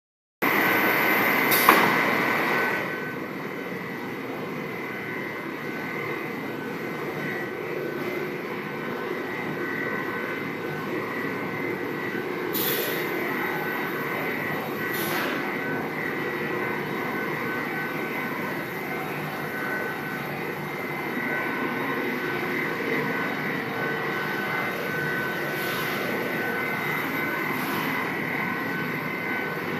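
Plastic sheet extrusion line running: a steady mechanical hum with a thin, constant high whine, and a few sharp clicks here and there. It is louder for the first couple of seconds.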